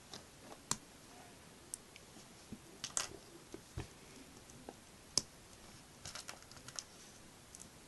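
Small plastic LEGO pieces clicking and tapping as they are handled and pressed together: scattered light clicks at irregular intervals, with a quicker run of them about six seconds in.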